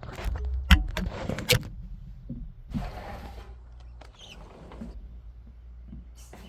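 Handling noise: several sharp knocks and clicks in the first second and a half, then a short rustle about three seconds in and a few faint ticks, over a steady low hum.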